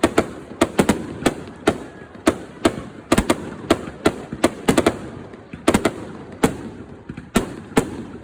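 Fireworks shells bursting in rapid, irregular succession, about three sharp bangs a second, with an echoing rumble between them.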